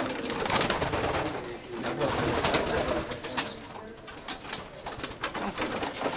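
Racing pigeons cooing in a loft room, with frequent sharp clicks and knocks throughout.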